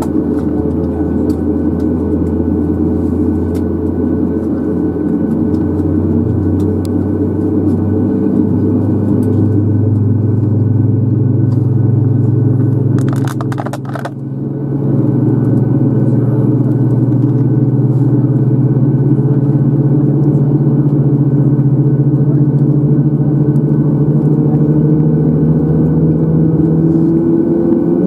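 Steady cabin drone inside a parked Boeing 737 MAX 8, with a low hum rising slowly in pitch and then holding, typical of an engine spooling up during start. About halfway through there is a short rattle and the level dips briefly.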